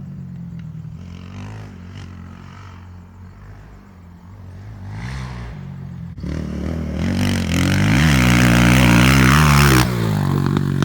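A motor vehicle engine running steadily, then revving much louder from about six seconds in, with a noisy rush and its pitch bending near the loudest point before it eases off just before the end.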